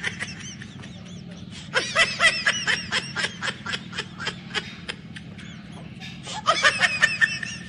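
High-pitched, rhythmic laughter in quick repeated pulses: a long bout about two seconds in and a shorter one near the end, over a steady low hum.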